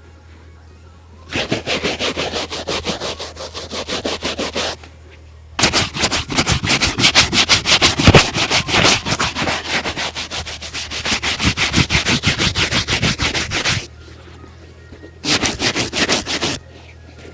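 A shoe being buffed with rapid back-and-forth rubbing strokes, about five or six a second, in three spells with short pauses between them.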